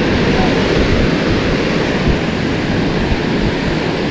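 Steady rush of surf breaking on the shore, mixed with wind noise on the microphone.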